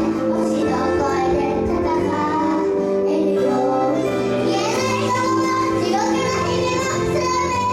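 Young girls singing a pop idol song together over backing music, louder and fuller from about halfway through.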